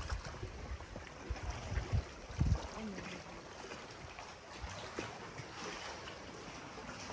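Water lapping and trickling against the hull of a small dinghy, with wind buffeting the microphone as a low rumble for the first two and a half seconds, then quieter lapping with small splashes.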